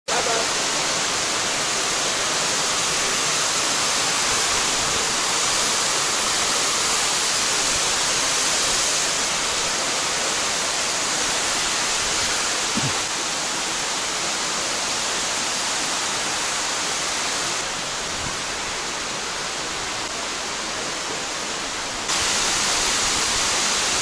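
Large waterfall: a dense, steady rush of falling water, dipping a little about two-thirds of the way through and coming back up abruptly near the end.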